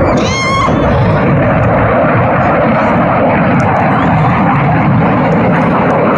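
Loud, steady engine noise of an airplane in flight.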